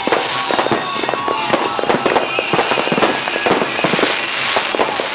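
Many fireworks and firecrackers going off at once in a rapid, continuous barrage of overlapping bangs and crackles.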